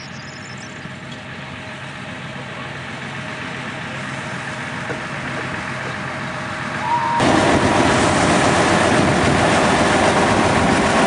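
Small narrow-gauge diesel locomotive running as it approaches, its engine hum growing steadily louder, then much louder and closer about seven seconds in as it passes right by.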